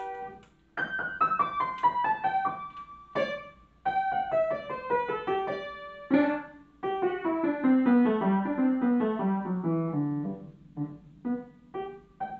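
Upright piano played solo: quick runs of notes stepping downward, a short break about half a second in, and a few short detached chords near the end.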